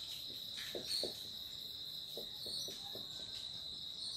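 Felt-tip marker writing on a whiteboard: a run of short, separate strokes and squeaks as letters are written, over a steady high-pitched background tone.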